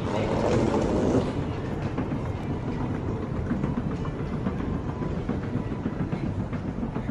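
Escalator running: a steady low mechanical rumble with faint scattered ticks, a little louder in the first second.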